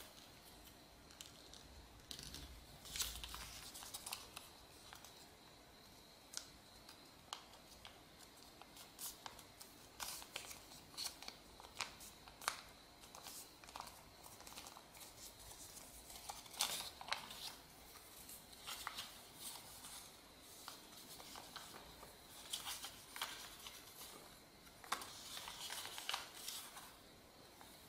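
A sheet of A4 paper being folded and creased by hand: an irregular string of faint, short crinkles and rustles as the paper is handled and pressed flat.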